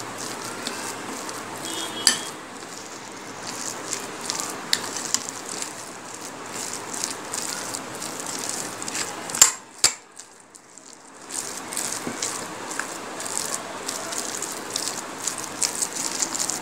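A hand mixing a thick, wet paste of ground urad dal with water in a glass bowl: steady squelching, with scattered sharp knocks of the hand against the glass. The mixing pauses briefly about ten seconds in.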